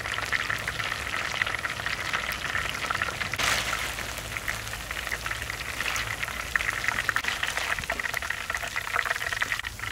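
Hot oil sizzling and bubbling in a wok as shred-coated chicken wings deep-fry: a dense, steady crackle of tiny pops, with a brief louder rush about three and a half seconds in.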